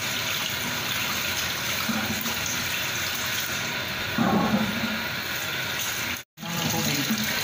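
Kitchen tap running into a stainless steel sink as cut pieces of grouper are rinsed under the stream: a steady rush and splash of water, louder for a moment about four seconds in. The sound breaks off for an instant near the end.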